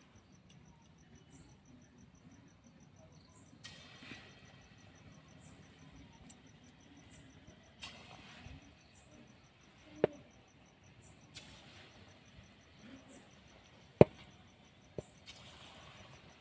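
Crickets chirp in a steady, even pulse. About four times, a short hiss of sizzling rises as small lumps of palm-fruit batter are dropped into hot oil in a kadai. There are a few sharp knocks, the loudest about fourteen seconds in.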